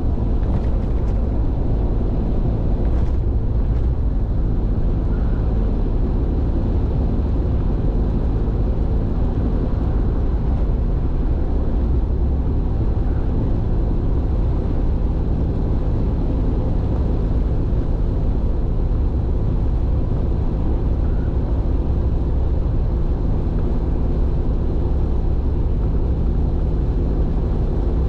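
A car driving at highway speed, heard from inside: steady low tyre and road rumble with a faint engine hum, unchanging throughout. A few faint clicks come in the first few seconds.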